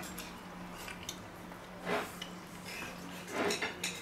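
Quiet eating sounds: a man chewing a forkful of pork fillet roast, with two soft short noises about two seconds and three and a half seconds in, over a steady low hum.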